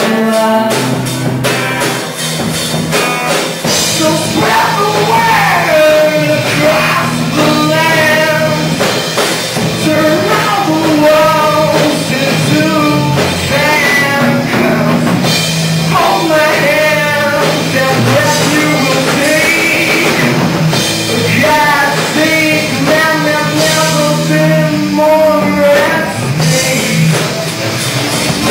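Rock song with a sung vocal over guitar and drum kit.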